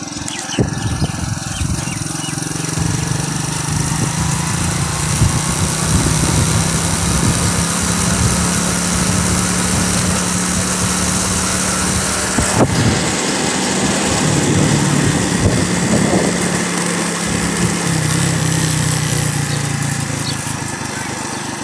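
Motorcycle engine running at a steady pitch while riding, with wind rushing over the microphone. A brief dip about two-thirds of the way through, then it runs on.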